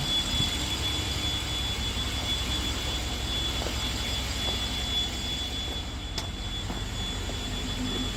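A BMW N63TU twin-turbo V8, the newly installed replacement engine, running steadily with a low rumble and a faint, steady high whine. A single sharp click comes about six seconds in.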